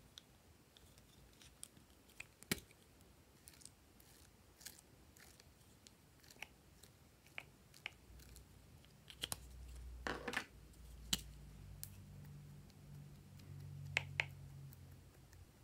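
Faint clicks and taps of small plastic seashell-shaped stamps being handled and pressed into slime in a glass dish, with a few sharper clacks. A faint low hum joins about halfway through.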